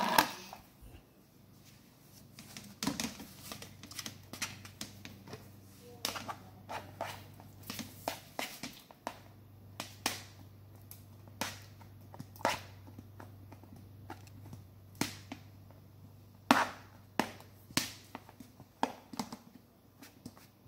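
Dumplings being tipped and scraped from a bowl into a pot of soup: irregular light taps and clicks, a few sharper ones, over a low steady hum.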